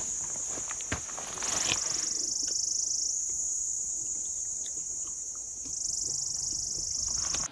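Chorus of insects giving a high, shrill, steady buzz that swells loud twice, about a second and a half in and again near the end, with a few faint clicks. It cuts off suddenly at the end.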